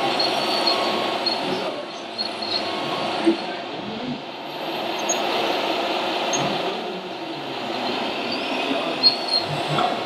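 Radio-controlled Liebherr 960 model excavator working its boom and bucket, a steady mechanical whine that swells and eases every few seconds as it lifts and swings a load of soil. There is a sharp knock about nine seconds in, as soil drops into the model tipper's bed.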